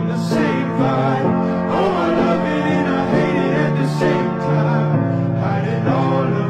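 Music with singing over long held low notes.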